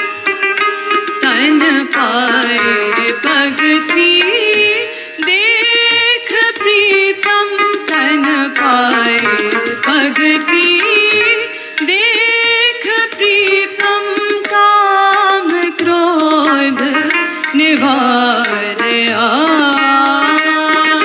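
A woman sings Gurbani kirtan in a long, gliding, ornamented melodic line. She is accompanied by a tanpura drone, a string instrument and tabla.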